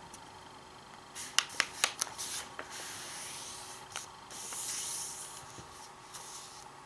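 A sheet of coloured paper being folded by hand: a few sharp crackles about a second in, then two stretches of rustling and rubbing as the fold is pressed down.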